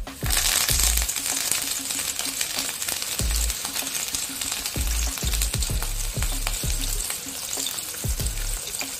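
Hot vegetable oil sizzling as a flour-coated whole croaker fish is laid into the pan: the frying starts suddenly, is loudest in the first second, then carries on as a steady sizzle.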